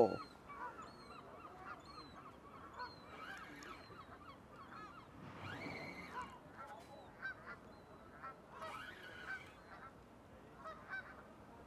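Geese honking on and off, faintly, in short repeated calls.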